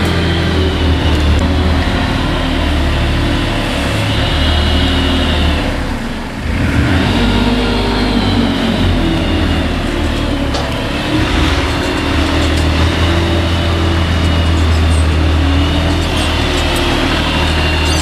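JCB 403 compact articulated wheel loader's diesel engine running as the machine works, its revs rising and falling. The sound drops briefly about six seconds in.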